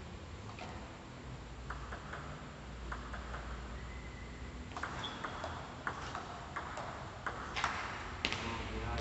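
Table tennis ball clicking: a few light bounces early, then, from about halfway, a quick run of sharp clicks of the celluloid ball on rubber paddles and the table, roughly two or three a second, loudest near the end.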